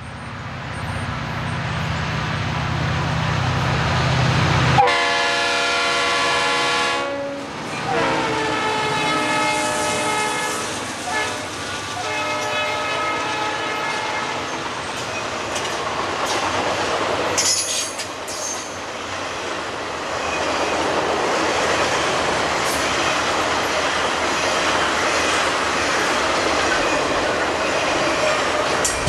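Diesel locomotive engine rumbling low and steady, cut off abruptly a few seconds in. A train air horn follows with two blasts, the second longer. Then comes the steady rumble and clickety-clack of an intermodal train's flatcars and highway trailers rolling past close by.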